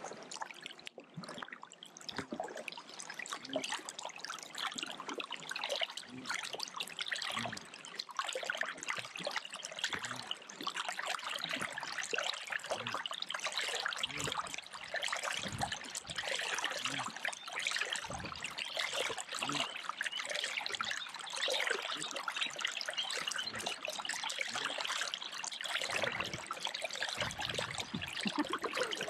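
Water trickling and splashing around a kayak being paddled, with drips running off the paddle blades and water moving against the hull.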